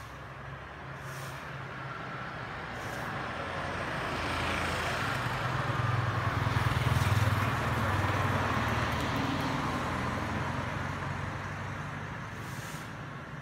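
A motorbike passes by on the street: its engine grows louder to a peak about halfway through and then fades away.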